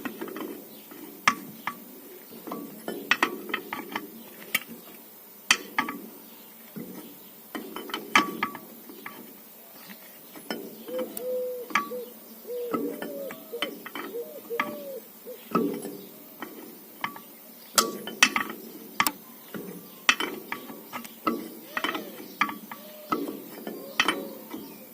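Irregular sharp clinks and knocks, some close together and some a second or more apart, over a steady lower background.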